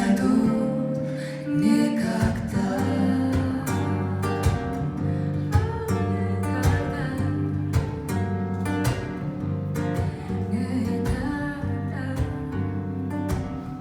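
Live music: a guitar playing a slow tune over a moving bass line.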